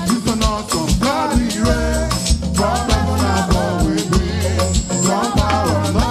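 Upbeat dance praise music from a church band: a steady beat with heavy bass, drums and shaker percussion under a bending melodic line.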